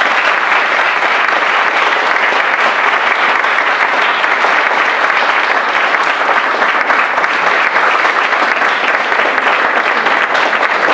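Audience applauding steadily and loudly at the close of a reading.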